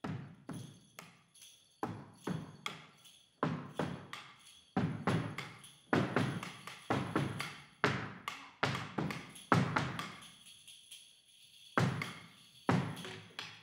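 Irregular percussive strikes, some in quick runs and some spaced out, each with a short ring-out, and a faint jingling ring held above them.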